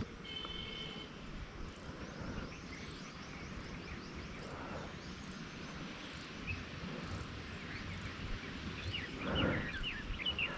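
Quiet outdoor background with faint bird chirps, a brief steady call near the start and a cluster of short chirps near the end.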